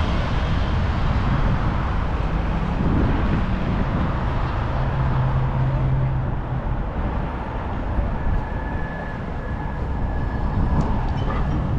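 Street traffic passing close by, a steady low rumble with the hum of a large engine in the middle. It eases off after about seven seconds, then builds again as more vehicles come.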